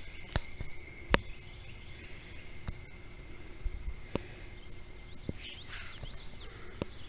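Steady, high-pitched drone of a swamp insect chorus, broken by a few sharp clicks at irregular intervals. A handful of short bird chirps come about three-quarters of the way through.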